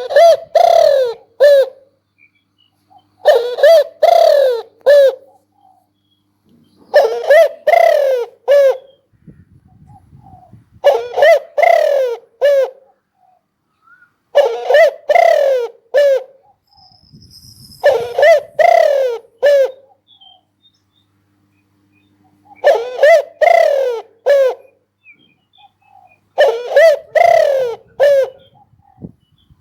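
Spotted dove cooing: a loud phrase of four or five coos, repeated about every four seconds.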